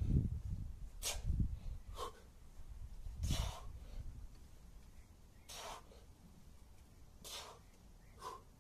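A man's short, forceful breaths, about six sharp hissing exhalations spaced a second or two apart, under the strain of heavy kettlebell cleans and goblet squats. Low thumps come in the first second and a half and again a little over three seconds in.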